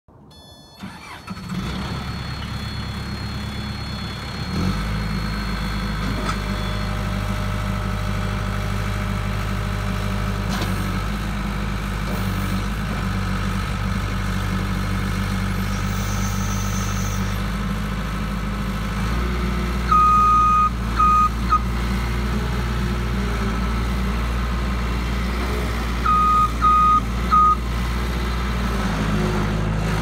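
Case 1840 skid steer loader's diesel engine running steadily while the machine works. It comes up quickly in the first second or two and steps up in pitch about four and a half seconds in. A high electronic backup alarm beeps a few times about two-thirds through and again near the end.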